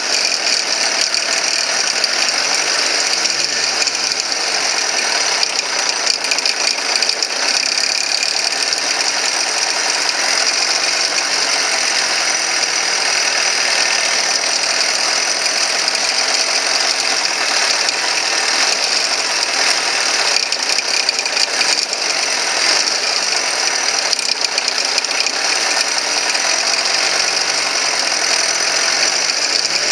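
Mercedes-Benz W204 C180's M271 four-cylinder engine running steadily, with a fast, continuous mechanical ticking and rattling over it: the abnormal engine noise being checked.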